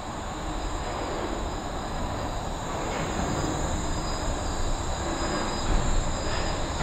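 Wuppertal Schwebebahn suspended railway train running: a steady rumbling roll with a fixed high whine, growing gradually louder.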